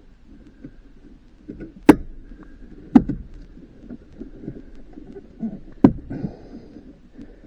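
Hard plastic and metal parts being handled and set down while a truck dash is taken apart: low rustling with three sharp knocks, about two seconds, three seconds and six seconds in.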